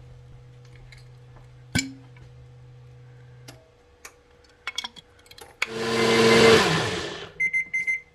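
An electric blender runs in one short burst of about a second and a half, its motor winding down at the end, followed by a few electronic beeps. Before that, a steady low hum stops about three and a half seconds in, among small clicks and knocks.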